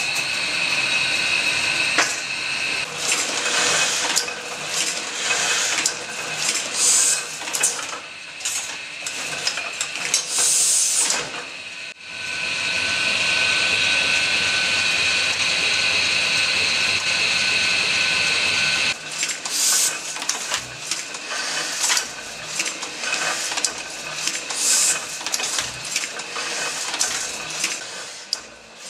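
Printing press running: rollers turning and the mechanism clattering, with a steady mechanical whine for several seconds in the middle.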